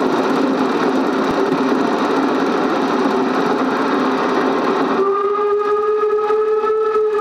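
Narrow-gauge steam locomotive running with a steady rumbling hiss, then about five seconds in its whistle starts: one steady, held note.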